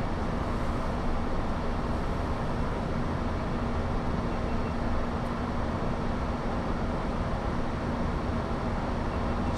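Steady flight-deck cabin noise of a Boeing 737-800 in flight: an even rush of air with a constant low hum through it.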